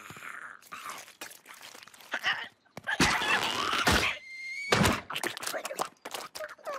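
Cartoon sound effects: a giant clam shell snapping shut with a loud crunch about halfway through, then several thuds, after short character vocal noises.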